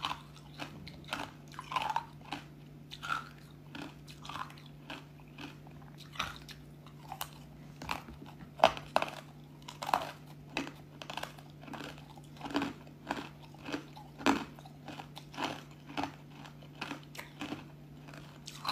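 Crisp pieces of ice dusted with matcha powder being crunched between the teeth: an irregular run of sharp crunches, about two or three a second, with one louder crunch near the middle. A faint steady low hum runs underneath.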